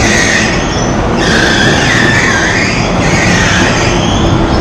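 Electric bumper cars running on a slick rink floor, with a loud wavering squeal over a steady rumble as they spin and circle.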